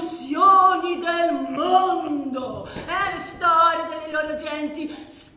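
A stage actor's voice declaiming in a strongly pitched, half-sung way, with long drawn-out syllables that glide up and down.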